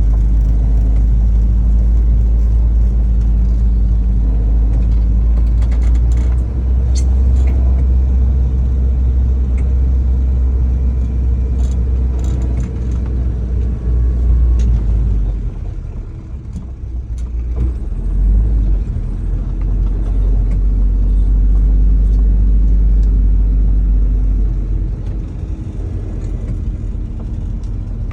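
Citroën DS driving in slow circles: a steady deep rumble under the engine's hum, with a few light clicks and rattles. The rumble eases for a couple of seconds past the middle. The car is being turned to bring out a noise from the front right that the owner hears when turning, stronger with more people aboard.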